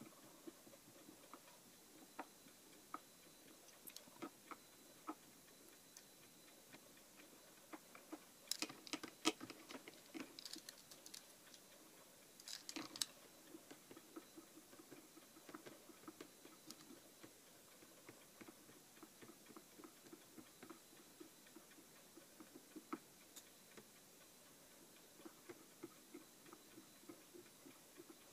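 Faint, scattered clicks and light taps of darkroom print tongs against a plastic developing tray as photographic paper is worked in the developer, with two brief flurries of louder clicks about nine and thirteen seconds in.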